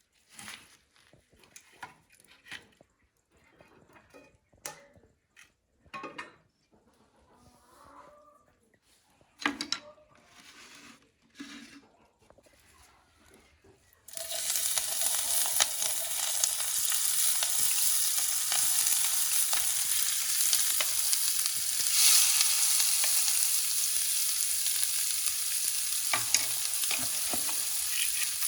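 Scattered light clicks and knocks of handling, then about halfway through a sudden sizzling starts and runs on steadily: mhajeb flatbread frying on a hot oiled griddle.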